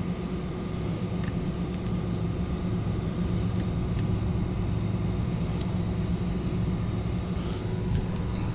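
A steady low rumble under a continuous high-pitched chorus of night insects such as crickets.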